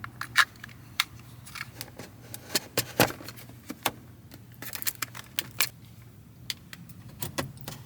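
Irregular sharp clicks and light rattling of AA-type batteries and a small plastic battery compartment being handled and fitted, over a faint steady low hum.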